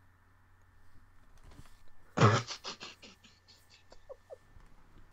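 A person's breathy laughter: a short burst of quick huffing pulses about two seconds in, followed by a couple of faint, short giggles.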